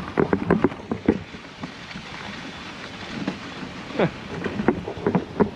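A dog sled running over packed snow: a steady hiss from the runners and wind on the microphone, broken by many short clicks and squeaks, bunched in the first second and again about four seconds in.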